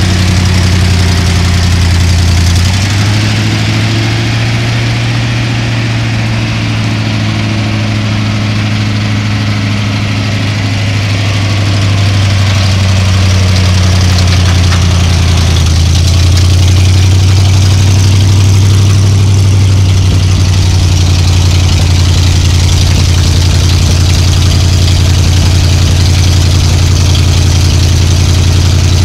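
A 1976 Ford F600 dump truck's engine runs steadily at idle while the dump bed is raised by its hoist. The engine note steps up slightly about three seconds in and grows louder past the halfway point.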